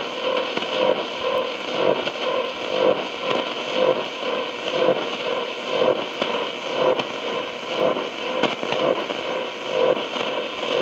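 Realistic DX-60 shortwave receiver hissing with static through its own speaker between stations, a brighter pulse coming through about once a second under the noise.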